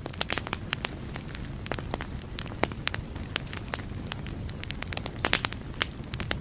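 Fire crackling: a steady low roar with irregular sharp pops and snaps, several a second.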